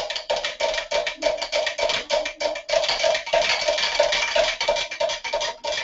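Countertop blender running, pureeing a vegetable sauce, heard as a rapid, even pulsing of about five pulses a second that cuts off near the end.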